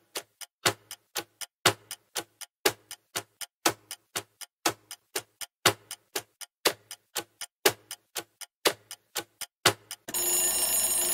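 Countdown-timer sound effect: a clock ticking, a few ticks a second with a louder tick each second, then about ten seconds in a steady ringing alarm tone as the countdown runs out.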